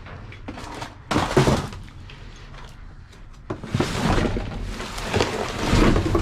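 Rummaging through dumpster trash: bags and packages rustling and items knocking and clattering as they are shifted, in a short burst about a second in and a longer spell from about three and a half seconds on.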